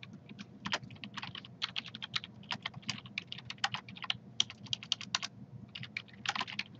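Typing on a computer keyboard: a run of quick, irregular key clicks as a file name is entered, with a short pause a little after five seconds in.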